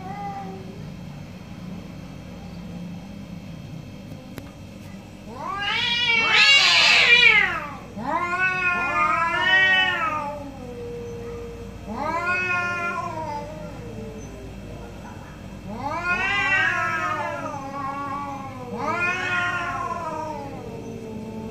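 Two orange domestic cats yowling at each other in an angry standoff: five long, wavering caterwauls that rise and fall in pitch, beginning about five seconds in, the first one the loudest.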